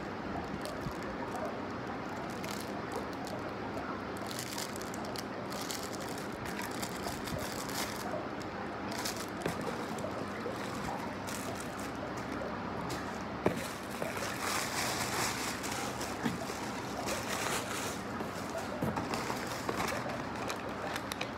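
Plastic wrapping and paper and poly mailer packaging crinkling and rustling as items are handled, with small taps and clicks throughout. A single sharp knock comes about two-thirds of the way in, and the rustling grows busier after it.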